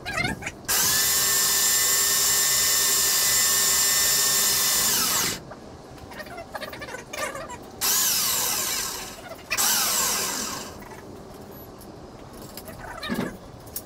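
Electric wire-rope hoist motor whining as it winds the hook up. It makes three runs: a long one of about four and a half seconds that winds down with a falling pitch, then two shorter ones.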